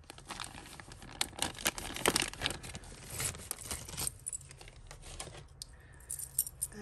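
Clear plastic bag crinkling as it is opened, with metal costume-jewellery beads clinking and jangling as a cord necklace is handled. The rustling is busiest in the first four seconds, then quieter, with a few clinks near the end.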